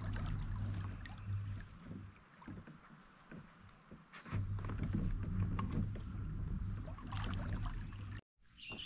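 Kayak moving through the water: a low steady rumble with water hiss that drops out for about two seconds and then comes back. The sound cuts off sharply near the end.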